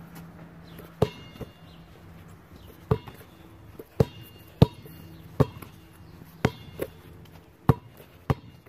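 A basketball dribbled on pavement: about ten sharp bounces at uneven spacing, each with a short ringing ping.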